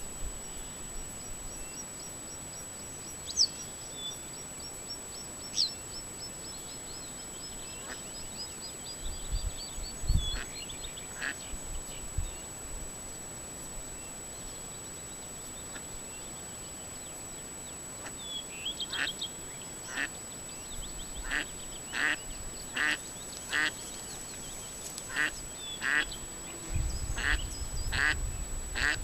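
Ducks quacking, a dozen or so short calls at uneven spacing in the second half. Earlier, a bird's high trill slows and falls in pitch over about ten seconds, all over a faint steady high whine.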